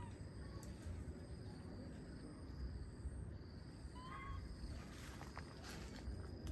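Outdoor ambience: a low wind-like rumble with a thin, high, steady insect-like tone that comes and goes, and one short chirping animal call about four seconds in.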